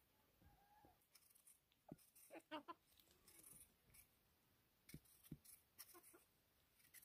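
Faint, intermittent scrapes and clicks of a kitchen knife peeling raw potatoes, the blade cutting through the skin.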